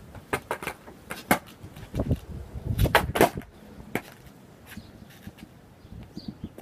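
A skateboard clacking on asphalt during an ollie. A few light knocks as the board is set down come first, then a heavier thud, and the loudest sharp clacks about three seconds in as the tail snaps and the wheels land. One more knock follows about a second later.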